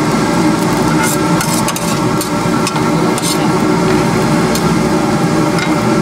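A metal spatula scraping and knocking against a wok with irregular sharp clinks while pork fried rice is stir-fried, over a steady sizzle.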